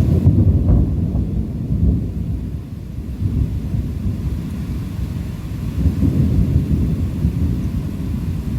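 Thunder rumbling in long rolls during a rainstorm, loudest in the first few seconds and swelling again about six seconds in, with faint rain beneath.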